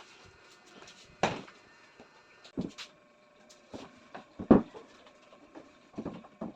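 Several separate knocks and bumps, as of wooden furniture parts being handled and set down, spaced irregularly with the loudest about four and a half seconds in.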